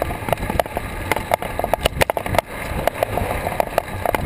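Wind and road noise on a bicycle-mounted action camera while riding, with many irregular sharp clicks and knocks as the bike and camera mount rattle over the pavement.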